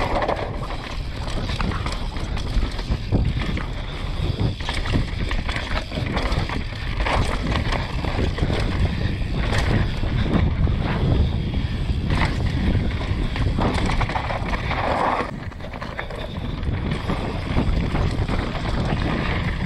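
Mountain bike descending a rough dirt downhill trail: wind buffeting the camera microphone over tyre noise on dirt and roots, with repeated clatter and knocks from the bike over bumps.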